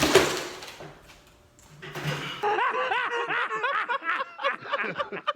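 High-pitched giggling laughter: a rapid run of short rising-and-falling squeals that starts about two and a half seconds in and quickens toward the end. Before it, a loud noise dies away over the first second.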